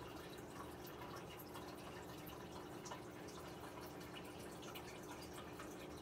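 Water in an aquarium dripping and trickling steadily, with a faint low hum underneath.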